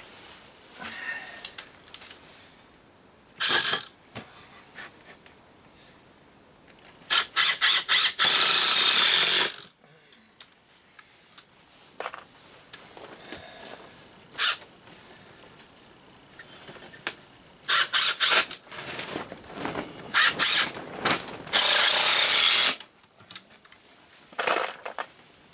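Cordless impact driver driving screws into 2x2 lumber: two rounds, about a third of the way in and again near the end, each a few short stuttering bursts building into a longer run of hammering. A few single knocks of wood between them.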